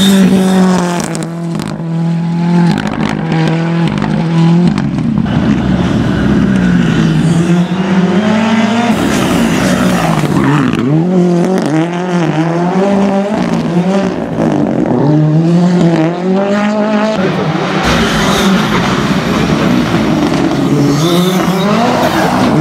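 Ford Fiesta rally car's engine at full throttle, its pitch repeatedly climbing then dropping through gear changes and lifts as the car passes at speed.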